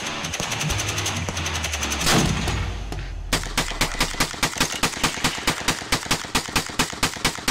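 Rapid gunfire from a drum-fed shotgun, shots coming evenly at about four a second from about three seconds in. Before that, a busier mix of sound with a single loud bang about two seconds in.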